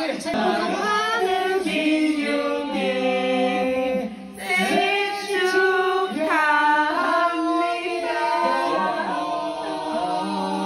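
Singing: a sung melody with held and gliding notes over music, dipping briefly about four seconds in.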